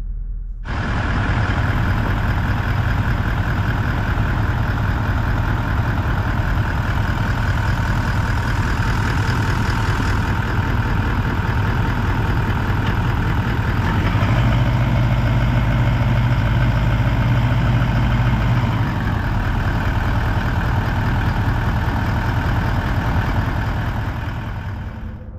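Toyota LandCruiser 200 Series' 4.5-litre twin-turbo V8 diesel idling steadily, heard close up from underneath the vehicle. The engine is kept running with the transmission at operating temperature so the automatic transmission fluid level can be checked at the check plug.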